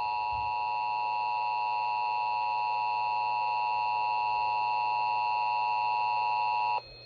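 Emergency Alert System attention signal: the steady two-tone alert tone, 853 Hz and 960 Hz sounding together, held for several seconds and cutting off abruptly near the end.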